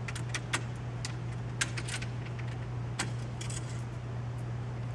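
Scattered light metallic clicks and taps of a screwdriver working screws and nuts loose on a metal frame, with small hardware clinking as it is handled. A steady low hum runs underneath.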